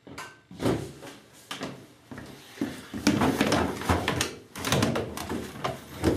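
Indesit front-loading washing machine's door opened by hand, then laundry pulled out of the drum: a series of knocks and clicks with rustling between them.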